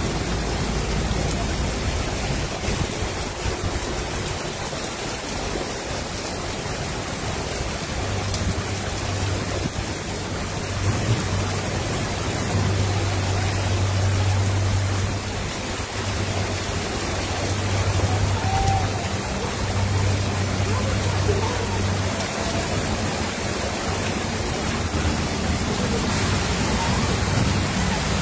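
Heavy rain pouring steadily onto a flooded street. A low engine hum from vehicles in the street runs through the middle.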